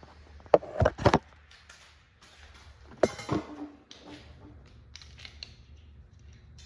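Sharp metallic clicks and knocks of hand tools and engine parts being handled: a cluster of three about a second in, two more about three seconds in, then a few fainter taps.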